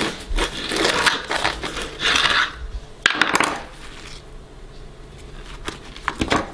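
Serrated bread knife sawing through the crisp crust of a ciabatta on a wooden cutting board, a rasping crunch for the first two and a half seconds. About three seconds in comes a sharp clack, followed by quieter crackling as the slices are handled.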